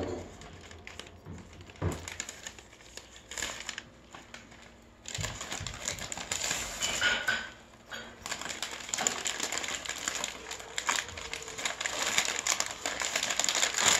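Shiny foil gift-wrapping paper crinkling and tearing as a dog mouths and paws at a wrapped present and a child's hands pull at it. The rustling is patchy at first and turns busy and louder from about five seconds in.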